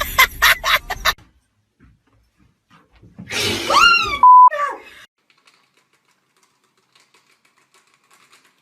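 A few sharp knocks, then about three seconds in a loud, high-pitched cry that rises and falls. A short, steady beep tone cuts across its middle, the kind used to bleep out a swear word.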